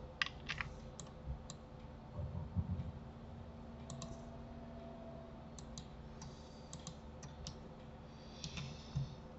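Computer mouse clicks and keyboard key presses, scattered single clicks a second or so apart, over a faint steady hum. A few dull low knocks come about two seconds in.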